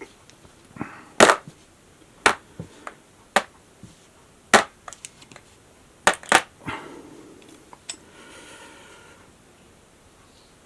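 Sharp metallic clicks and snaps from a ZEKE M-10 Military & Police model revolver as its parts are worked by hand during disassembly, about a dozen at uneven spacing, with a short scraping rattle about seven to nine seconds in.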